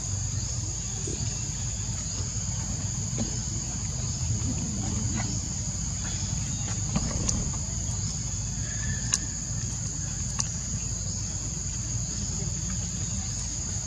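Steady high-pitched insect drone from the surrounding forest, with a second insect chirping in an even rhythm beneath it, about two chirps a second. A low steady rumble runs underneath, and a few sharp ticks stand out around the middle.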